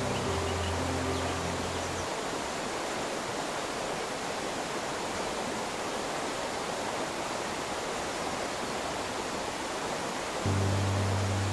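Steady rush of flowing river water. Soft background music plays over it for the first two seconds and comes back about a second before the end.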